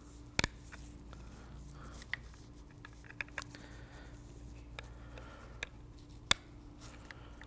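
Plastic wiring-harness plugs being pushed into an iDatalink Maestro module: a handful of sharp clicks as the connectors seat, the loudest about half a second in and another just after six seconds, with lighter ticks and wire-handling rustle between.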